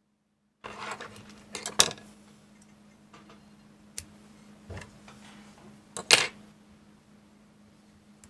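Small clicks and taps from hands handling tools and materials at a jig-tying vise, the two sharpest about two and six seconds in, over a steady low hum. The sound starts suddenly after a short silence.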